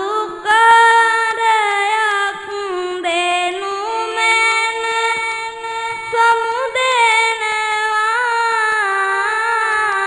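A young boy monk's single voice chanting a Sinhala Buddhist sermon in verse (kavi bana), in long held notes that slide and waver between pitches.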